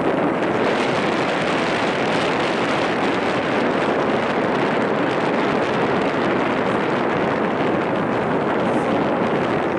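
Wind blowing across the camera microphone: a steady rushing noise without a break.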